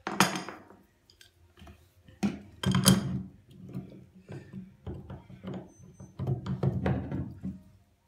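Adjustable wrench on a brass tap headwork, clinking and knocking against the metal as the headwork is tightened back into the tap body, with sharp knocks at the start and around two to three seconds in and smaller clicks and scrapes after.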